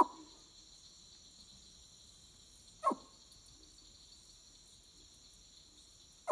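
Nighttime swamp: a steady high chorus of night insects, broken about every three seconds by a short call that drops sharply in pitch, three in all.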